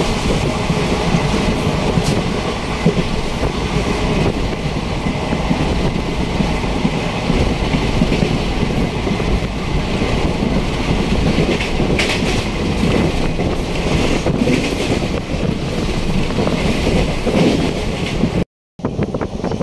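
Express passenger train running, heard from inside a coach: a loud, steady noise of the moving train. It cuts out for a moment near the end.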